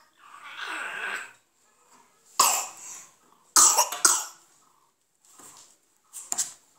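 Toddler coughing: a breathy vocal sound, then a few short, sharp coughs from about two seconds in, with a softer one near the end.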